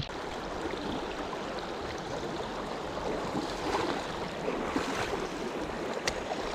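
Steady rush of flowing creek water below a dam, with a single sharp click about six seconds in.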